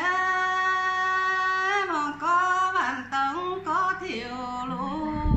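A woman singing a Dao folk song in the Dao language, in the call-and-response style. She holds one long note for nearly two seconds, then sings shorter phrases that bend and slide in pitch.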